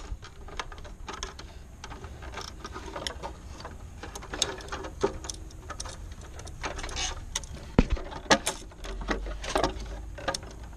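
Irregular small clicks and knocks of hand work on a pool timer's wiring and metal parts, as the ground wire is fitted and fastened, over a low steady hum.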